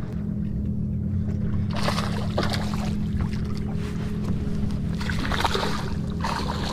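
Fishing boat's motor humming steadily, with two short bursts of noise about two seconds in and again around five seconds in.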